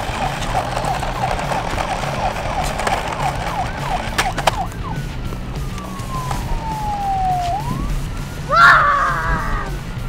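Toy police car's electronic siren: a fast warbling yelp, then a slow falling tone and a quick rising sweep, with a louder pitched burst near the end.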